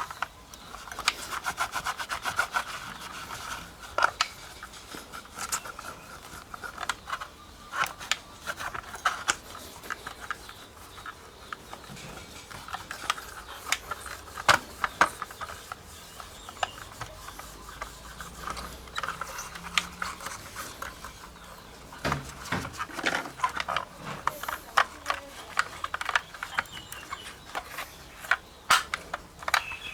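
Rubbing and scrubbing on a small diecast model car during cleaning, with many short clicks and taps scattered throughout.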